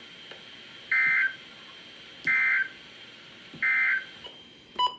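Emergency Alert System end-of-message code from weather radio: three short two-tone digital data bursts, each a harsh buzzy screech about a third of a second long, about 1.3 seconds apart, marking the end of the severe thunderstorm warning. A faint steady high whine runs underneath, and a brief sharp beep comes near the end.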